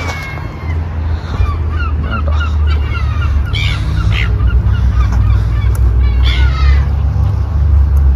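A flock of ducks calling, with many short calls overlapping and a few louder ones in the middle, over a steady low rumble.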